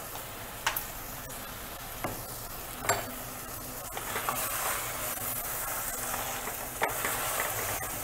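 Wooden spatula stirring bird pieces through a thick masala in an aluminium pressure cooker, the masala sizzling over the heat. A few light knocks come in the first seconds, and the stirring grows louder about halfway through.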